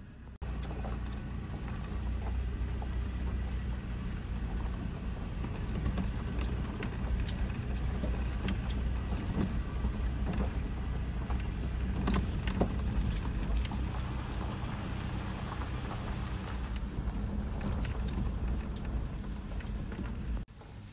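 Toyota 4Runner creeping along a gravel dirt road, heard from inside the cabin: a steady low rumble of engine and tyres, peppered with many small clicks and crackles of gravel under the tyres. The sound starts abruptly about half a second in and drops out briefly near the end.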